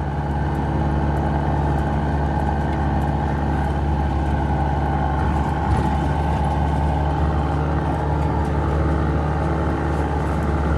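4x4 engine and drivetrain running at a steady low drone while driving slowly along a sandy riverbed, with a single knock about halfway through.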